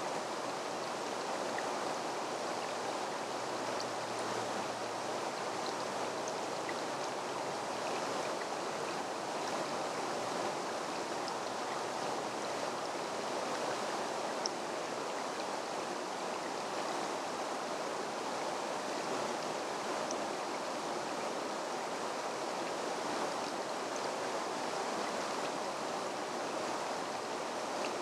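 Steady rushing of a stream flowing over stones.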